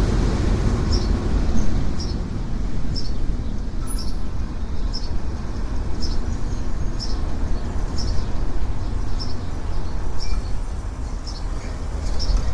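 Freight train's cars rolling past with a steady low rumble, with short high chirps recurring about once a second.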